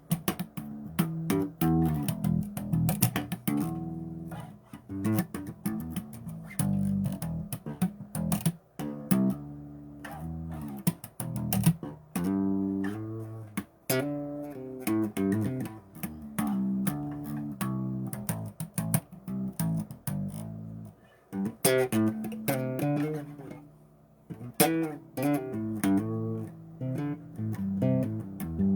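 Bass guitar with a clean tone playing a riff, a steady run of plucked low notes with a few short breaks between phrases.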